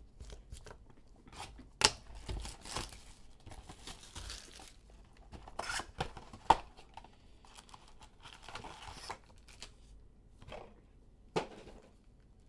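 A cardboard Elite football trading-card box being torn open and its foil packs pulled out: irregular tearing and crinkling of card and foil wrappers, with a few sharp snaps.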